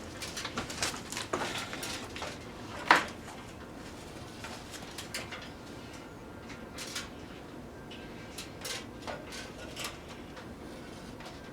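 Christmas lights sparking and arcing inside running microwave ovens: irregular crackling snaps over the ovens' steady running noise, with one loud snap about three seconds in.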